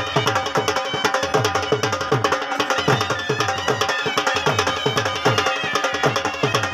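Traditional-style music with a steady, driving drum beat and a melody over it.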